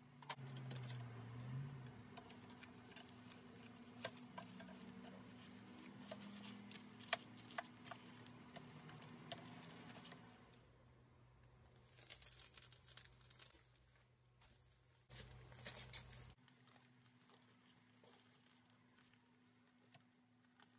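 Aluminium foil crinkling and rustling faintly as foil packets are handled and unwrapped, with scattered small clicks and crackles, and a couple of louder rustling stretches past the middle.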